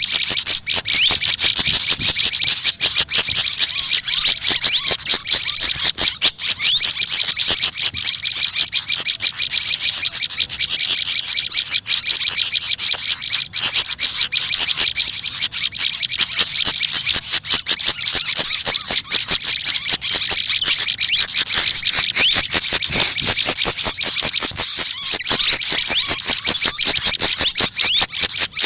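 Small songbirds singing a continuous, rapid, high-pitched chattering song, with many notes a second and no pauses.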